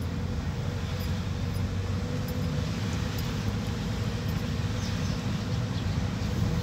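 Cabin noise of a moving car: engine and tyre noise heard from inside, a steady low rumble with a faint even hum above it.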